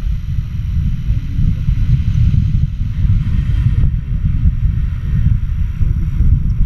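Wind buffeting the camera's microphone as the paraglider flies through the air: a steady, deep rush of air noise.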